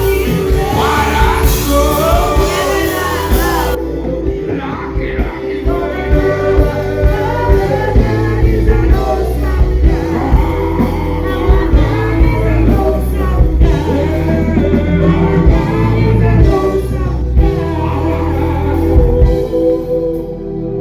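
Live music: a singer's voice over a band, with steady held chords and heavy bass on a regular beat, amplified through a concert PA.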